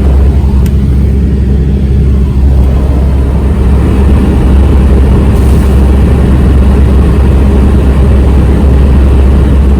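Steady engine and road noise heard from inside a moving vehicle, a constant low rumble.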